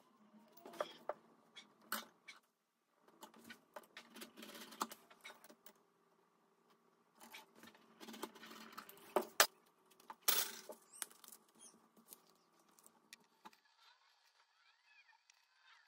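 Utility knife cutting faux leather along a steel ruler on a wooden cutting board: irregular knocks, clicks and short scraping strokes, with a couple of sharper clicks near the middle. The handling stops a couple of seconds before the end.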